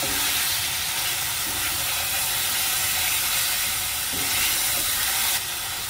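Lamb chops in a thick yogurt marinade sizzling steadily in a hot wok on high heat as they are stirred with a wooden spoon, with most of the marinade's moisture cooked off. The sizzle eases slightly near the end.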